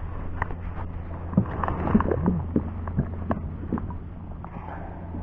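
Handling noise from a camera being repositioned: scattered clicks, knocks and rubbing over a steady low rumble of wind on the microphone.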